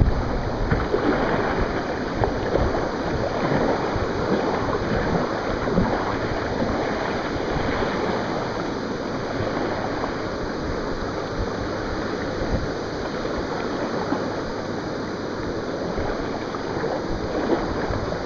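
Whitewater of a creek running high through an easy class III rapid, heard from a kayak: a steady rushing of water with a few brief splashes.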